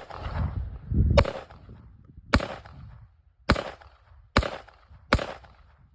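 Gunshots fired one at a time at a slow, steady pace: five sharp cracks roughly a second apart, each with a short echo.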